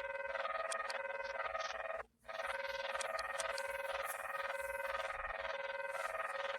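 Emergency Alert System alarm tones played in reverse: a steady tone under higher electronic beeps that step back and forth in a repeating pattern, broken by a brief silence about two seconds in.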